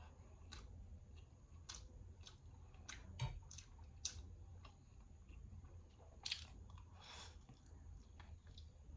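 Faint chewing of instant noodles: scattered small wet clicks and smacks of a mouth eating, with a couple of slightly longer, louder ones between about six and seven and a half seconds in.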